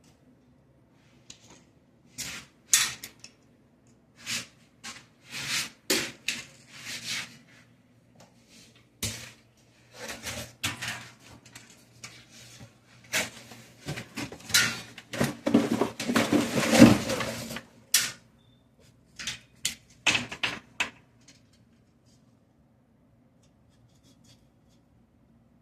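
Clicks, taps and short rattles of small hard plastic and metal parts being handled, as an electric razor is worked on by hand. The handling is busiest and loudest in the middle and stops a few seconds before the end.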